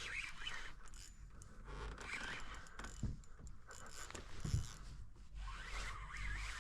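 Rustling and scraping sounds, with two short soft thumps about three and four and a half seconds in.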